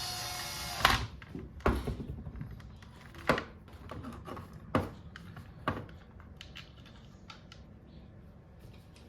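A small electric power tool's motor whirs and stops just under a second in. Then come several sharp knocks and clicks of tools and parts being handled during reassembly, fading to lighter clicks.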